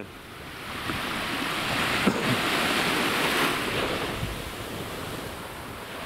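Small waves from the Black Sea washing up on a sandy beach, the wash swelling and easing, with wind buffeting the microphone. A brief tap about two seconds in.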